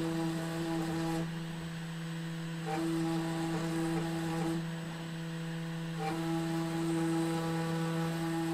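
Genmitsu PROVerXL 4030 V2 CNC router running a G-code job: the 400 W DC spindle gives a steady hum. A higher whine from the axis motors comes in three stretches of a second or two as the machine moves the V-bit over the plywood.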